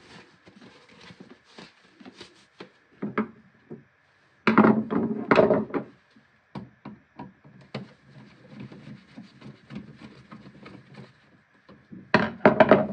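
Hand tools being handled and set down on a laminate countertop: scattered light clicks and knocks, with louder clattering about four to six seconds in. Near the end a screwdriver scrapes and clicks at the screw of a wall outlet's cover plate.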